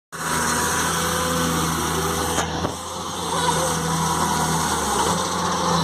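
L&T-Komatsu PC200 hydraulic excavator's diesel engine running steadily as the machine digs in wet mud, with a brief click about two and a half seconds in.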